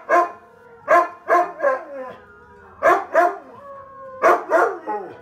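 Dog giving short, yelping barks in quick groups of two or three, four groups in all, with a fainter drawn-out howl between them.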